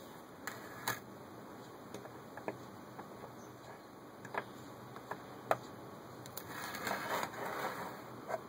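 Smooth-edge side-cutting can opener worked on the rim of a metal can: scattered light metal clicks as it is clamped on and its key turned, then about a second of scraping and grinding, starting about six and a half seconds in, as the cutting wheel runs along the rim.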